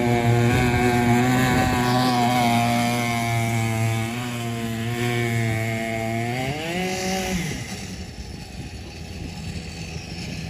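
Stihl 088 120cc two-stroke chainsaw engine driving a mini longtail boat, running steadily at high revs, then rising in pitch about six and a half seconds in and cutting off a second later. After it stops, the rush of the flowing creek remains.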